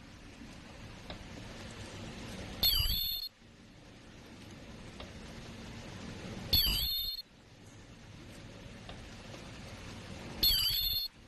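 An HSP-200 automatic honey stick filling and sealing machine running, a steady hum broken about every four seconds by a loud half-second burst with a wavering high squeal and hiss, three times, as the machine works through its repeating cycle.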